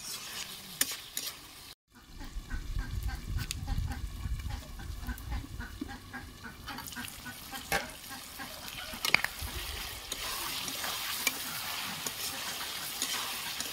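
Chicken pieces frying in oil in a steel kadai over a wood fire, sizzling, with a steel spatula scraping and stirring against the pan. The sound drops out for a moment about two seconds in, and the frying hiss grows fuller in the second half.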